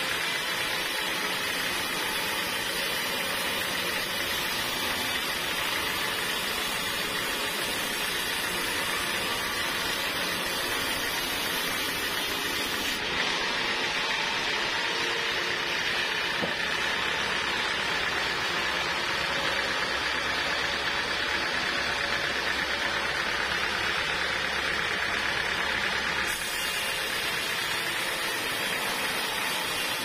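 Band sawmill cutting lengthwise through a large teak log: the saw runs with a steady, even noise as the blade works through the wood.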